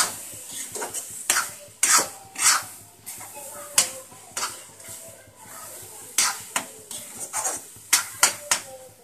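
A metal spatula scraping and knocking against an iron kadhai in irregular strokes as it stirs a thick, sticky mixture of grated amla in sugar syrup that is being cooked down.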